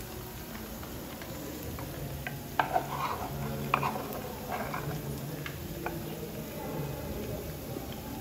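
Akara (bean fritters) sizzling as they fry in a pan of hot oil, while a spoon scrapes and stirs bean batter in a clay mortar. A few sharp knocks come in a cluster a couple of seconds in.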